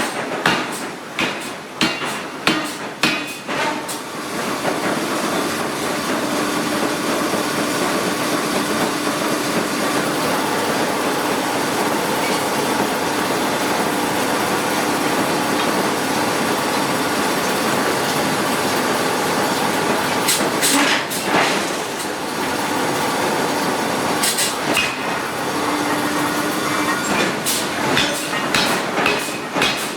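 Giant hydraulic forging hammer striking steel: a quick run of blows for the first few seconds, then a steady loud mechanical rush with a faint hum for about fifteen seconds, and scattered blows again in the last ten seconds.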